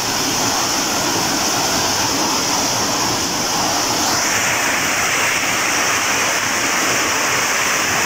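Shallow stream rushing over rock slabs and small cascades: a steady hiss of white water. About four seconds in the sound gets fuller and brighter.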